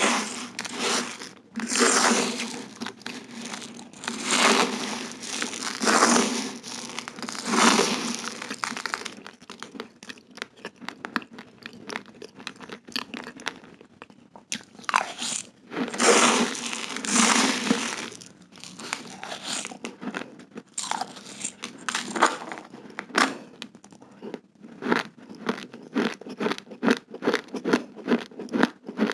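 Close-miked crunching of raw, uncooked rice grains being chewed. There are dense crackly bursts at first, and in the last few seconds it settles into quick regular crunches, two or three a second.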